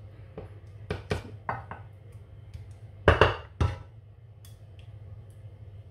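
Wooden spoon knocking and scraping against a glass baking dish and a pan of meat sauce, with a handful of sharp knocks, the loudest pair about three seconds in.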